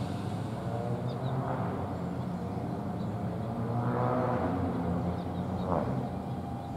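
Steady low hum from a distant NJ Transit Arrow III electric multiple-unit train, swelling a little about four seconds in. Faint bird chirps sound over it.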